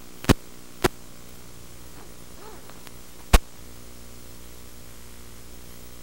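Steady static hiss with a low hum from the empty audio channel of an analog FPV video link, broken by three sharp pops: two in the first second and a louder one a little past three seconds in.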